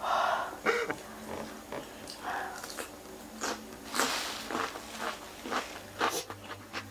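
Eating noises: sharp hissing breaths and sniffs from chili heat, mixed with chewing and a few clicks of a metal fork against a metal tray.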